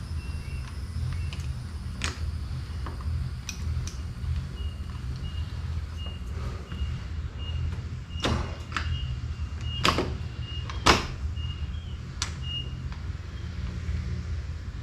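Sharp clicks and knocks of metal door hardware being handled and fitted, about eight in all, with the loudest about eleven seconds in. Under them runs a steady low hum and a faint, broken high tone.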